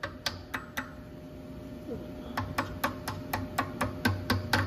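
Light hammer taps on a steel punch set against a motorcycle gas cap hinge, driving the hinge pin in. Four quick taps, a pause, then a run of about a dozen at roughly four a second.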